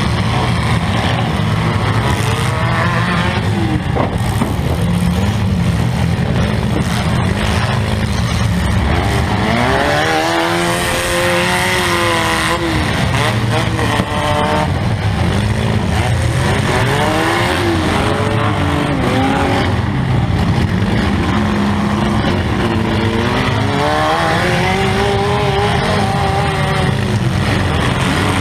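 Compact demolition-derby car's engine running loud, heard from inside the stripped cabin. It revs up and falls back several times, with a few brief knocks.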